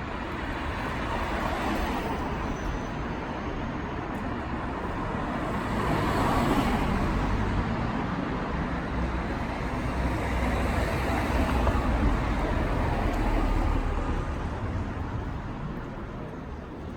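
City street traffic: cars driving past, swelling as vehicles pass close by, once about six seconds in and again for a longer stretch past the middle.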